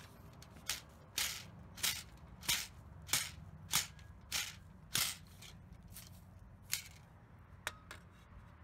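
Soil being tamped down around the base of a wooden fence post: about ten strikes, one every half second or so, that slow and stop about seven seconds in, followed by a couple of faint taps.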